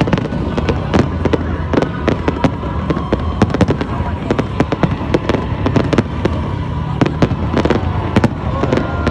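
Fireworks display: a dense, unbroken barrage of aerial shells bursting and crackling, many sharp bangs a second.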